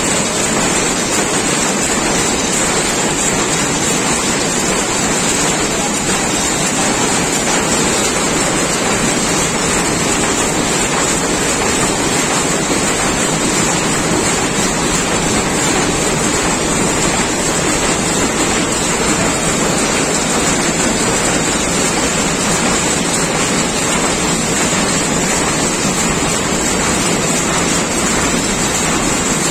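Rapier weaving loom running at speed: a loud, steady, dense mechanical clatter with no separate beats.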